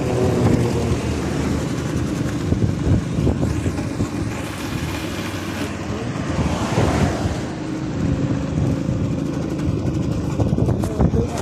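A motor vehicle's engine running steadily with road noise, with a louder swell of noise about two-thirds of the way through.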